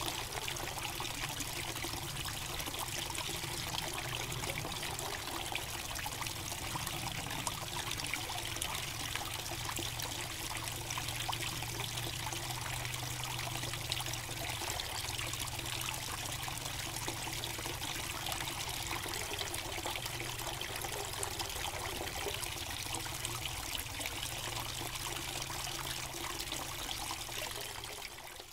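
Water trickling and pouring steadily from a small chute into a garden pond, fading out near the end.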